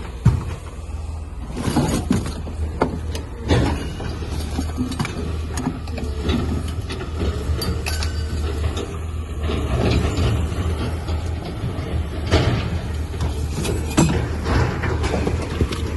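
Truck driving: a steady low engine and road rumble with frequent clunks and rattles over it.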